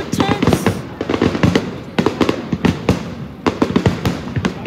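Aerial fireworks shells bursting overhead, many sharp bangs following each other in quick, irregular succession.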